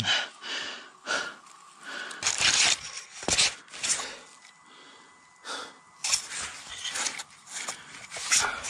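A crashed mountain biker's irregular gasping and panting breaths, winded after landing hard on his chest, with dry leaves and twigs rustling as he moves in the brush.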